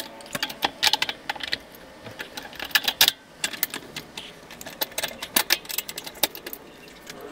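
Irregular light metallic clicks and taps as the rear wheel and brake drum of a Kawasaki ZX130 are worked into place on the swingarm.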